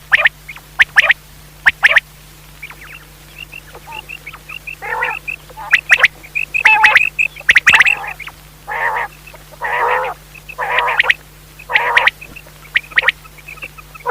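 Common quail calling: a series of short, loud, raspy calls about once a second, mixed with runs of quick, high, thin notes.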